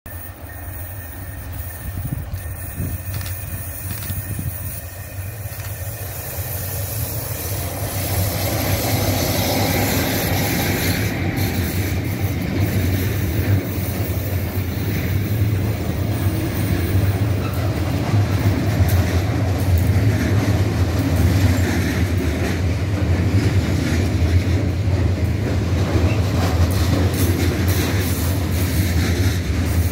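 Intermodal freight train behind a DB Vectron locomotive passing close by: the wagons rumble and clatter over the rails. The sound grows louder over the first eight seconds or so as the train comes near, then stays steady as the container and trailer wagons roll past.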